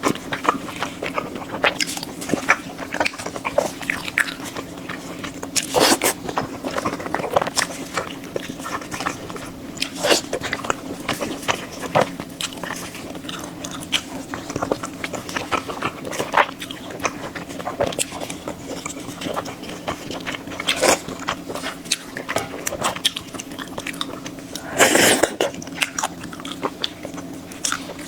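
Close-miked eating: biting and chewing with many sharp crunches, a few louder bites standing out.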